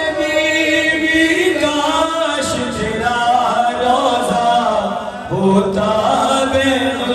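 A man chanting a noha, a Shia mourning lament, in long wavering held notes.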